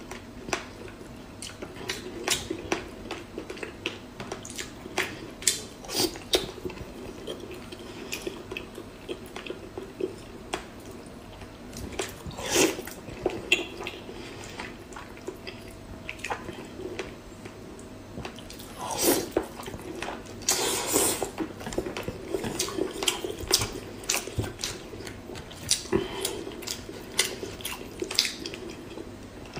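Close-miked mukbang eating sounds: wet lip smacks and chewing clicks, coming irregularly several times a second, with a few louder, longer mouth sounds about twelve seconds in and again around nineteen to twenty-one seconds in.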